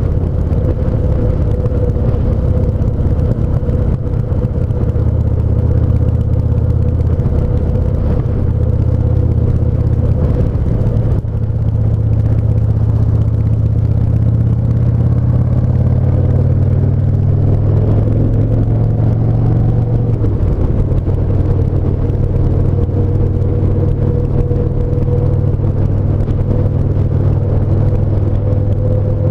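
Yamaha SCR950's air-cooled V-twin running at a steady cruise on the motorbike's on-board sound, with a steady whine above the engine drone. The engine note shifts about a third of the way through and again about two-thirds in.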